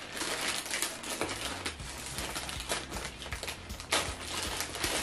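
Scissors snipping through a plastic mailer bag in a run of sharp clicks, with the plastic crinkling as it is cut and handled.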